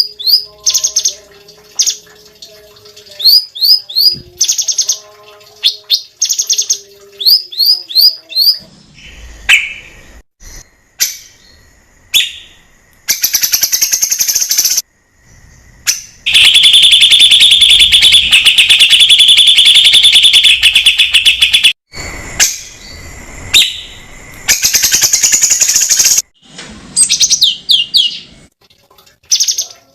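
Cucak cungkok singing loudly: sharp, quick falling whistled notes, often in threes, then long rapid rattling trills, the longest lasting about five seconds. Fainter, lower steady notes sound under the whistles in the first part.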